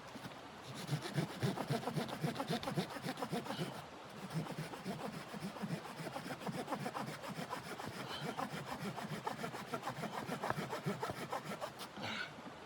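Wood being sawn by hand: a steady run of rapid rasping saw strokes, with a short pause about four seconds in.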